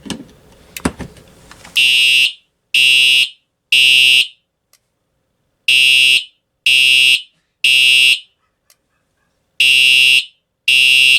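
Simplex TrueAlert fire alarm horn sounding the code 3 (temporal-three) evacuation pattern: three half-second blasts, a pause, three more, then the pattern starting again near the end. A few clicks come just before the horn starts, about two seconds in.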